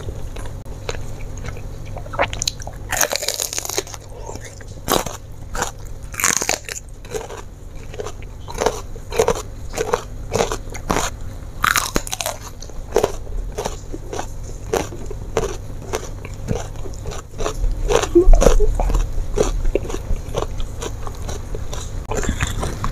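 Close-miked biting and chewing of crunchy raw bitter melon: several sharp crunches among wet chewing and mouth clicks. A few low bumps come about three-quarters of the way through.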